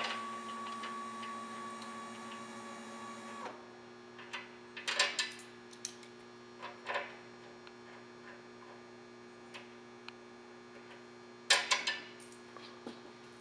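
Whisper Lift II TV lift's electric actuator motor running with a steady hum as the column rises, cutting off sharply about three and a half seconds in. Then come scattered metallic clicks and rattles of nuts and bolts being handled on the lift column, the loudest near the end.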